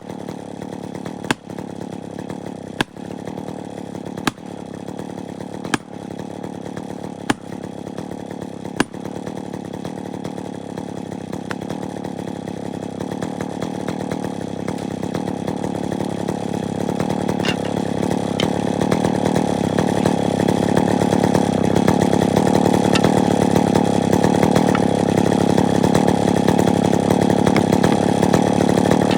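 Chainsaw running steadily while felling wedges are struck with a hammer seven times, about one blow every second and a half. The wedges are already driven tight, and the blows stop after about nine seconds. The saw then grows steadily louder and stays loud.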